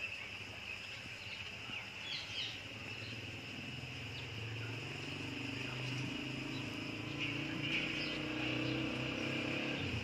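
Steady outdoor insect chorus, a continuous high-pitched buzz, with a few short bird chirps about two seconds in. A low hum comes up about halfway through and grows a little louder.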